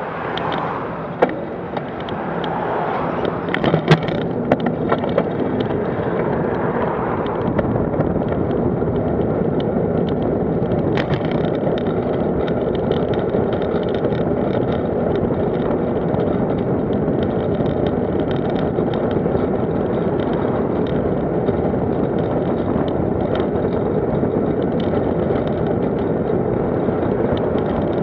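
Steady rush of wind and road noise from a camera moving along a road, building over the first several seconds and then holding steady, with a few sharp clicks and knocks near the start.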